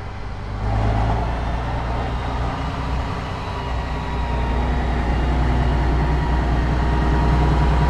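Diesel engine of an eight-wheeled RM-70 rocket-launcher truck running as it drives slowly. It makes a steady low drone that gets gradually louder, with a thin steady whine over it.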